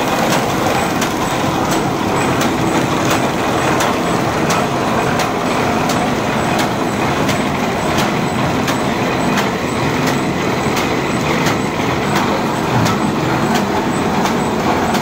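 Paper bag making machine running at speed: a loud, steady mechanical clatter with a sharp click repeating at an even pace.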